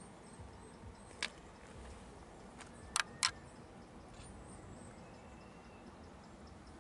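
Quiet outdoor background with faint high bird chirps. Three sharp clicks stand out, one a little after a second in and two close together about three seconds in.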